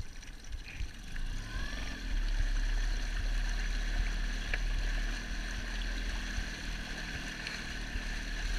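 Small Evinrude outboard motor running, pushing an inflatable boat along with water churning in its wake. The motor's pitch rises about a second in, and it runs louder from then on.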